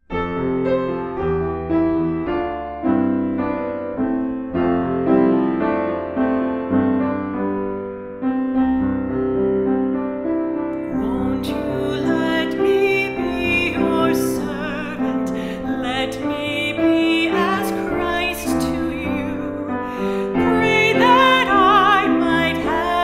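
Piano playing alone, then a woman's singing voice comes in about eleven seconds in, with a clear vibrato, over the piano accompaniment.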